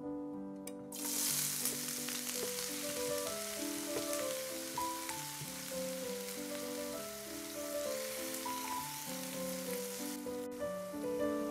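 Diced onion sizzling as it fries in hot oil in a non-stick pan over medium heat; the sizzle starts suddenly about a second in as the onion hits the oil and drops sharply near the end. Soft piano music plays underneath.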